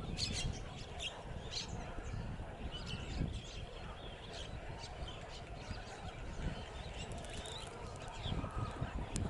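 Birds calling and chirping with many short, high calls, busiest in the first second or so, over a steady low rumble.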